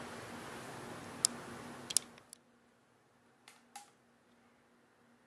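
Several sharp clicks and light taps of small FPV camera modules being handled, over a faint hiss that cuts out about two seconds in.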